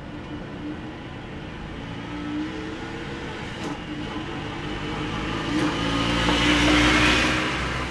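Vespa Ape three-wheeler engine running as the Ape drives up and passes close by. It grows louder over the last few seconds, peaks about seven seconds in, and then starts to fade.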